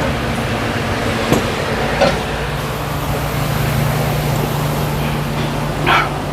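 A steady mechanical hum and noise, with a few short sharp clinks of metal tools being worked; the loudest clink comes near the end.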